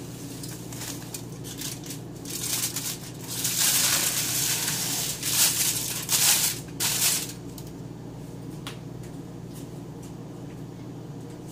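Plastic wrap and aluminium foil crinkling and rustling as they are pulled off a raw lamb leg. The loudest crinkling comes in a run from about two and a half seconds in to about seven seconds in.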